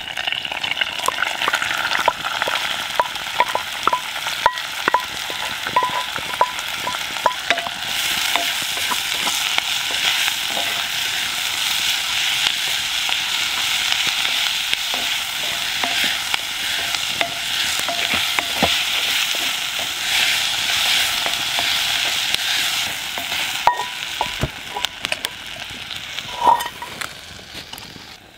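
Diced onions sizzling as they fry in a hot cast iron Dutch oven, stirred and scraped with a wooden spatula, with sharp crackles through the hiss. The sizzle fades over the last few seconds.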